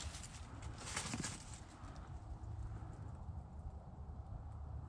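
Footsteps in dry fallen leaves: a crunching step about a second in, then fainter rustling over a low rumble.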